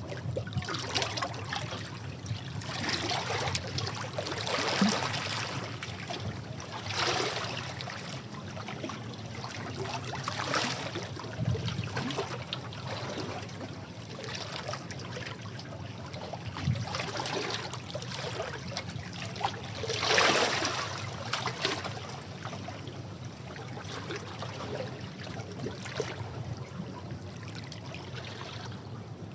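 Sea waves washing against rocks, with surges of splash and spray every few seconds over a steady wash of water running off the rocks. The biggest surge comes about two-thirds of the way in.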